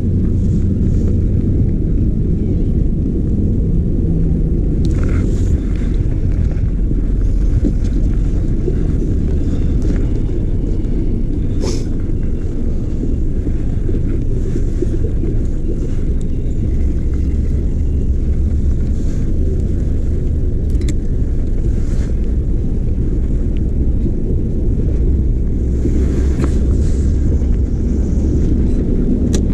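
Wind buffeting the microphone: a loud, steady low rumble with a few faint clicks.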